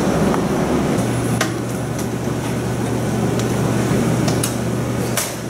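Steady background rumble of a studio with a low hum that comes in about a second in, and a few faint clicks.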